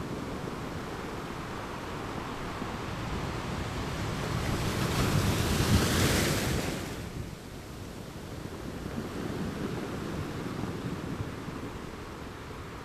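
Ocean surf: a steady wash of waves, with one wave swelling about four seconds in, breaking loudest around six seconds, and falling away sharply a second later.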